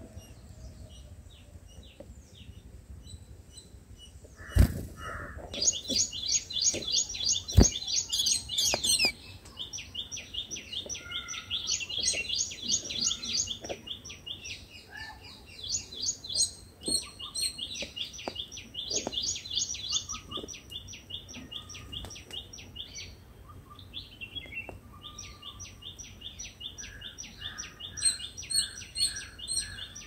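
White-eye nestlings giving rapid, high begging chirps in bursts lasting several seconds while the adult feeds them at the nest. Two sharp knocks, the loudest sounds, come about five and eight seconds in.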